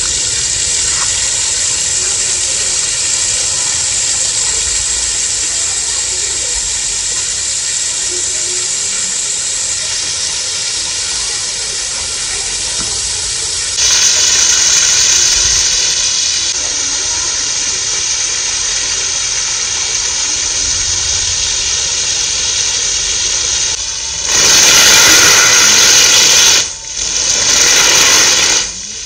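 Water gushing from the delivery pipe of a newly installed 1 HP Texmo submersible borewell pump, a steady rushing hiss. It grows louder for a couple of seconds about halfway through, and again near the end with a brief dip.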